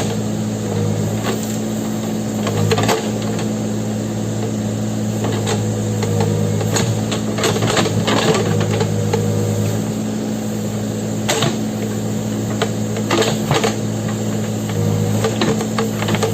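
Backhoe loader's diesel engine running steadily under load, with scattered knocks and clanks from the machine working.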